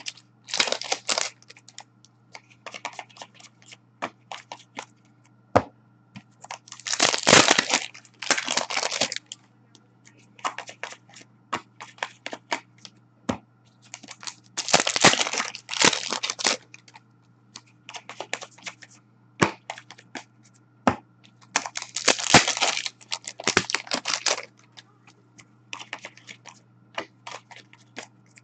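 Foil trading-card packs being torn open one after another, with a loud crinkling rip about every seven or eight seconds. Between the rips come light clicks and rustles of cards being handled and stacked, over a faint steady hum.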